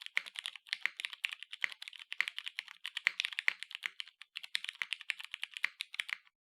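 Typing on a TGR Jane V2 mechanical keyboard with lubed vintage Cherry MX Brown switches in a polycarbonate half plate, no case foam, on a bare desk without a mat: a quick, steady stream of keystrokes. There is a short pause about four seconds in, and the typing stops abruptly about six seconds in.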